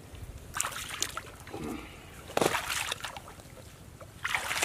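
Pond water splashing and sloshing in three short bursts, about half a second in, midway and near the end, as a wet cast net is rinsed and gathered by hand while wading in shallow water.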